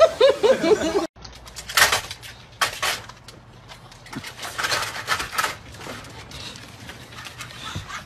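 A sulphur-crested cockatoo's short run of rising and falling calls, then, after a cut, a few noisy scuffling and clattering bursts as bulldogs push one after another through a pet door flap.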